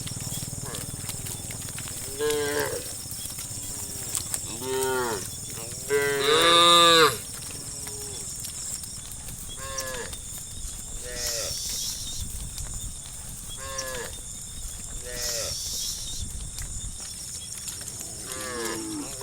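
Cows mooing, one call every few seconds, with the longest and loudest moo about six seconds in.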